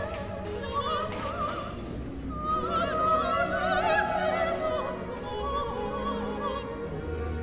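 Background music: operatic singing with strong vibrato over orchestral accompaniment.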